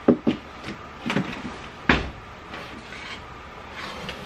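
Wooden drawer being pushed into a cube shelf on metal drawer slides and worked in and out, giving a series of short wooden knocks and clunks; the sharpest comes about two seconds in.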